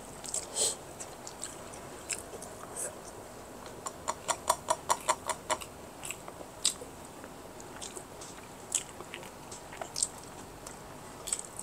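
A person chewing and biting food close to the microphone, with scattered crunchy clicks and a quick run of crunches, about six a second, about four seconds in.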